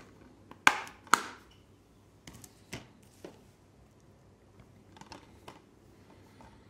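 Plastic Blu-ray cases being handled on a table: two sharp clacks a little under a second in, then a scattering of lighter clicks and taps as one case is put aside and another picked up.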